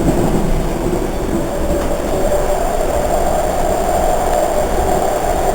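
A Budd-built Baltimore Metro subway car running, heard from inside: a steady rumble of wheels on rail, joined about halfway through by a steady whine that holds.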